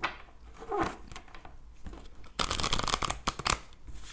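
A deck of oracle cards being shuffled by hand. A quick run of rapid card flicks comes about two and a half seconds in and lasts about a second, after softer handling noises.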